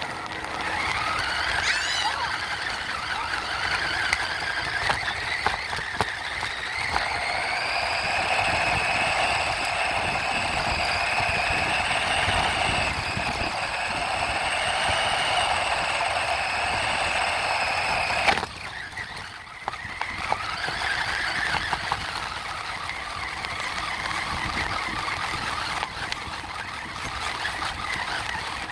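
RC truck's motor whining. Its pitch rises over the first several seconds and then holds high. The whine cuts off suddenly about two-thirds of the way through, then starts again at a lower pitch.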